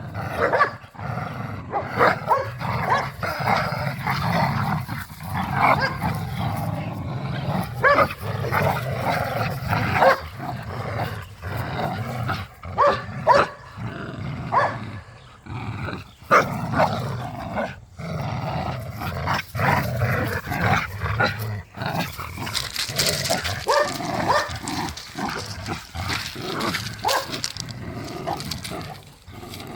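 Dogs growling and snarling at play during a tug-of-war and wrestling match, with occasional barks; pit bulls and a Malinois.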